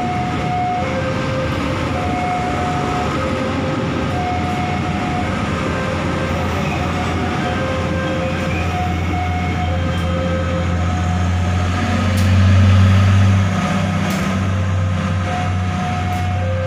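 Railway level-crossing alarm sounding two alternating tones, high then low, over and over, while a train runs over the crossing with a steady rumble. A deeper drone swells about twelve seconds in and eases off a second and a half later.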